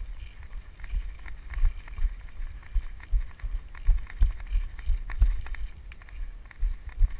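Someone running: heavy footfalls about two to three a second, louder after the first second, with wind on the microphone.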